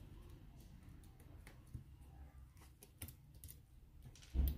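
Faint clicks and taps of gloved fingers handling an opened iPhone 6 and a replacement battery laid on top of it, with a dull thump about four seconds in.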